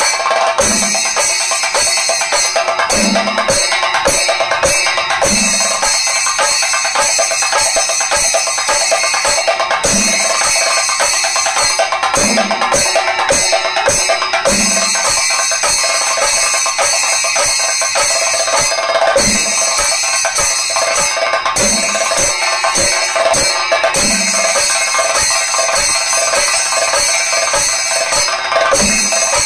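Thayambaka ensemble: chenda drums struck with sticks in fast, dense strokes over steadily ringing ilathalam cymbals, with a deeper drum stroke every few seconds.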